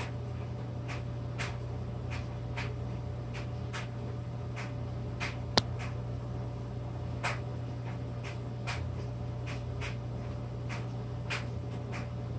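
A spoon spreading thick icing onto a graham cracker: soft, irregular scrapes and light taps, with one sharp click about five and a half seconds in, over a steady low hum.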